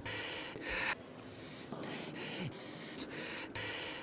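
A man's breathing and mouth noises: several short, hissy intakes and exhalations in a row, each starting and stopping abruptly, with a few small clicks between them.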